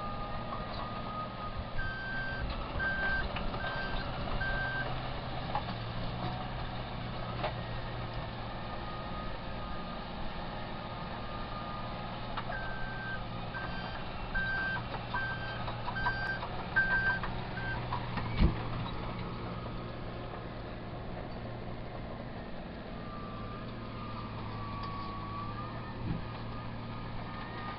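Heavy machine's reversing alarm beeping in two runs of evenly spaced beeps over the machine's engine running steadily, with scattered clanks and one sharp knock about two-thirds of the way through.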